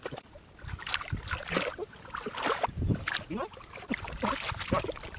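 Irregular splashing and squelching of muddy shallow water, a string of short uneven sloshes and slaps as hands work through the mud.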